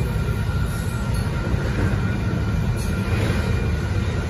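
Double-stack intermodal container train rolling past at a grade crossing: a steady, unbroken rumble of wheels on rail.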